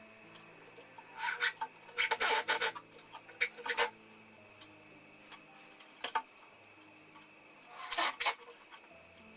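Short bursts of scraping, rubbing and clicking from hands handling plywood pieces and screws at the workbench, in four or five clusters over a faint steady hum.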